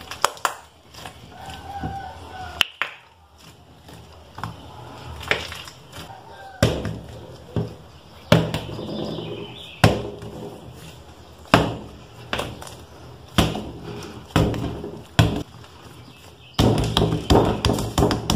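A ball of slime thrown down onto a table again and again, making sharp thuds about once a second, with squishing from the slime being handled between throws. Music starts near the end.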